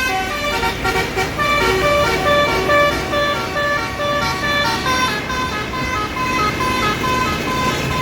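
A bus's basuri telolet multi-tone air horn playing a quick tune of short notes stepping up and down.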